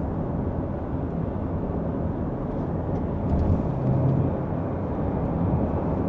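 Steady road and wind noise inside the cabin of a 2023 Nissan X-Trail cruising at highway speed, close to 110 km/h.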